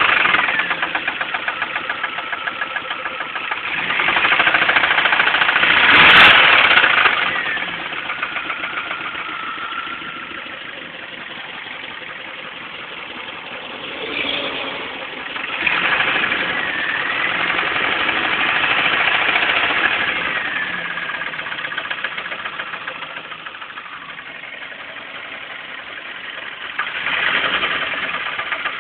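Pontiac Sunfire engine running with a fast, regular knock, revved up and back down three times, the knock keeping pace with the revs. The knock is the sign of a blown engine.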